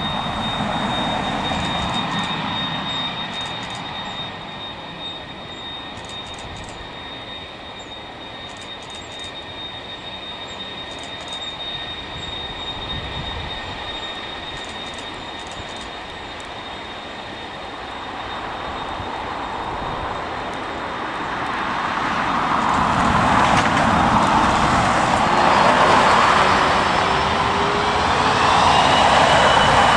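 Jet airliner's engines, distant and steady at first, then growing much louder over the last third, with a rising whine near the end.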